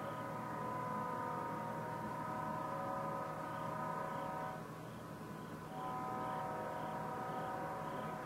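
Leslie S5T five-chime locomotive air horn sounding two long blasts of a steady multi-note chord, separated by a pause of about a second midway.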